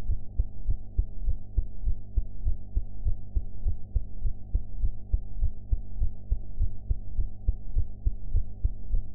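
A person's heartbeat: steady, regular low thumps over a faint steady hum. The sound is muffled, with nothing above about 1 kHz.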